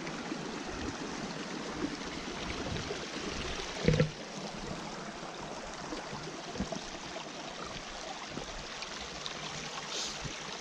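Small mountain stream running over rocks: a steady rushing trickle. A single thump stands out about four seconds in.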